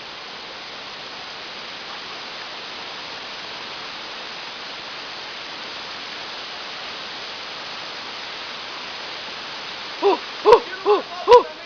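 Steady rushing of a waterfall. Near the end a quick run of short hooting calls, a few a second, joins in, with two sharp clicks.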